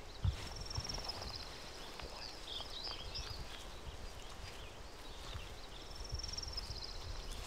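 A small woodland songbird singing a short high trilling phrase that ends in a few falling notes, sung twice about five seconds apart. Under it is quiet outdoor ambience, with a couple of soft thumps near the start.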